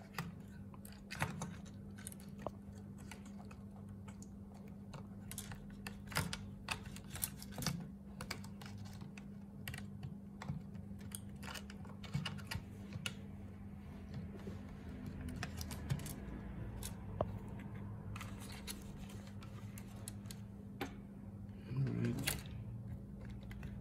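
Scattered light clicks and taps of a MacBook Pro logic board being handled and seated back into its aluminium case, over a steady low hum.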